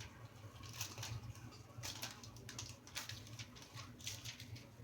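A pet bird tearing paper with its beak: short scratchy rips and rustles about once a second, over a faint steady low hum.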